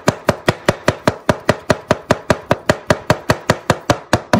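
Chef's knife rapidly slicing cremini mushrooms on a cutting board, the blade knocking on the board in a steady rhythm of about six cuts a second.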